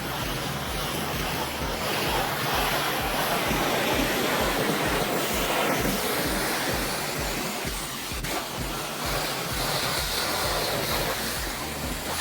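Steady hiss of water spraying from a pressure-washing wand, over background music with a regular low beat.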